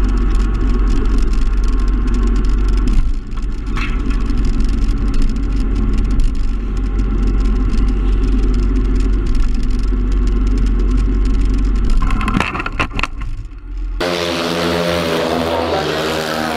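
Sport motorcycle engine running at speed, with heavy wind buffeting on the bike-mounted microphone. A few sharp knocks come near the end, and then the sound cuts abruptly to a different one with a wavering pitch.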